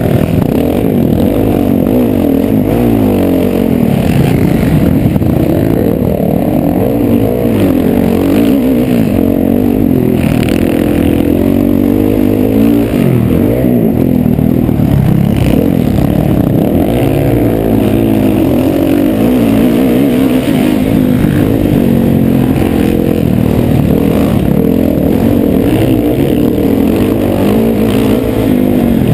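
Motocross dirt bike engine revving hard and shifting through the gears at race pace, its pitch climbing and dropping over and over, heard from a helmet-mounted camera.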